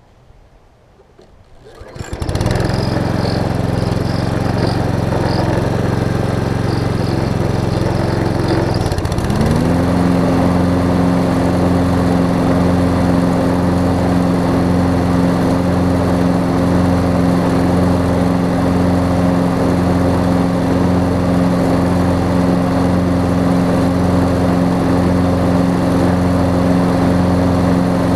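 Toro Recycler push mower's small engine starting about two seconds in and running steadily. About nine seconds in the engine speeds up and settles at a higher, steady speed.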